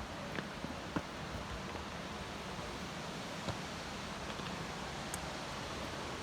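Steady rushing of water in a mountain gorge, with a few faint sharp clicks scattered through it.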